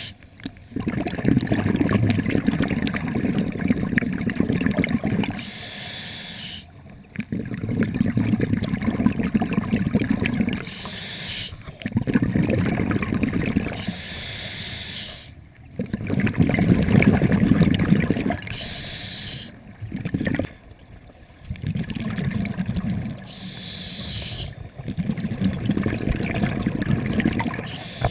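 A scuba diver's exhaled bubbles rumbling and gurgling out of the regulator, heard through a GoPro's underwater housing. They come in six or seven long bursts, one per breath, with a short quieter break at each inhalation.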